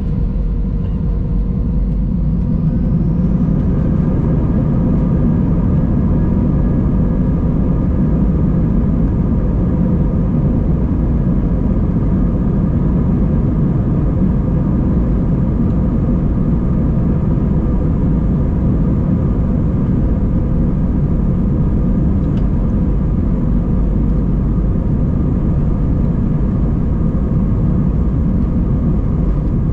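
Airliner cabin noise inside an Airbus A320: the steady deep rumble of its IAE V2500 turbofan engines with a few steady hums over it, growing a little louder about three seconds in and then holding level.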